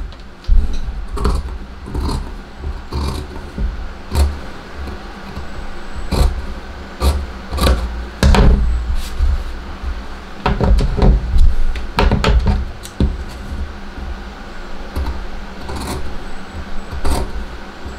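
Fabric scissors cutting through two layers of cotton pocketing: irregular sharp snips and blade clicks, with low knocks and rumble from the cloth and scissors being handled on the table.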